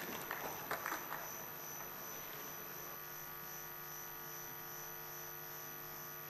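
Steady electrical hum with a faint high whine, the background of a live microphone feed, with a few faint soft knocks and rustles in the first second or so.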